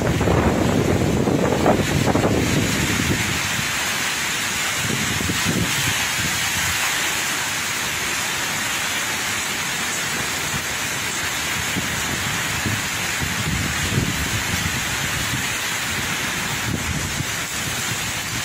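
Typhoon wind and heavy rain: a steady hiss of rain, with gusts buffeting the microphone, strongest in the first couple of seconds.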